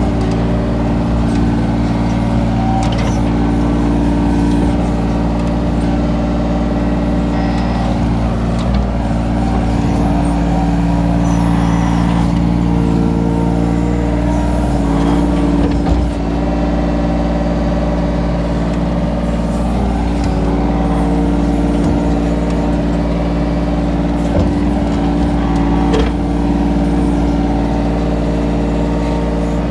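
Kobelco mini excavator's diesel engine running steadily under hydraulic load while it digs, its tone shifting as the boom and bucket work, with a few short knocks from the bucket in the soil.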